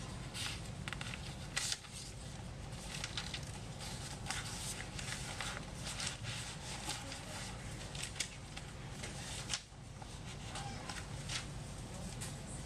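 Dry-erase marker drawing on a whiteboard: a run of short, irregular scratchy strokes, over a steady low hum.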